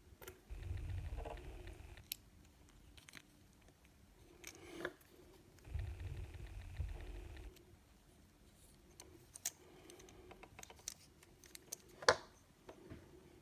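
Small clicks and taps of tiny plastic and metal parts being handled as wheels are fitted into a 1/64-scale diecast car, with a sharper click near the end. Two stretches of dull low rumble from the parts being handled.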